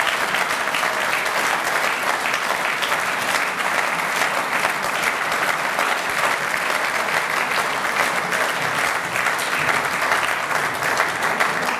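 Large audience applauding, a dense steady clapping that holds at one level throughout.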